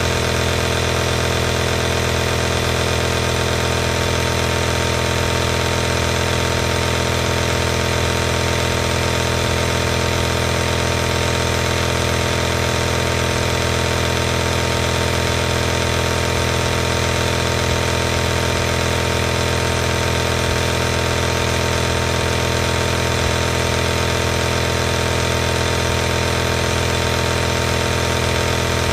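Compressor nebulizer running: its small piston air compressor gives a steady, unchanging hum with a layer of hiss from the air driven through the nebulizer cup.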